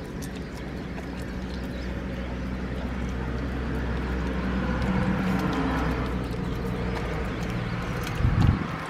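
San'in Shiba dog licking and chewing chunks of raw venison in a stainless-steel bowl: wet mouth sounds and small clicks, over a steady low hum. A dull low thump near the end.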